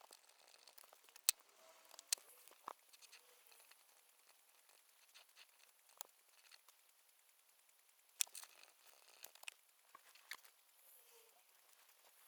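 Faint desk sounds of studying: scattered sharp clicks and light rustling, as of pen and paper, about seven distinct clicks spread unevenly over a quiet hiss.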